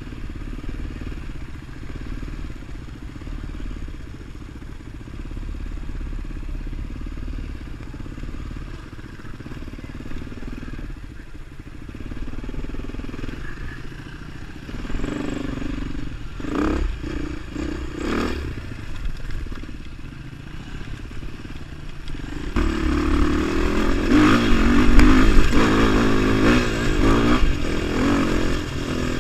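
Beta 450 RR single-cylinder four-stroke dual-sport motorcycle engine running at low speed, with a few short throttle blips about halfway through. About three-quarters of the way in it gets louder as the bike accelerates along the gravel road, with rising wind and gravel noise.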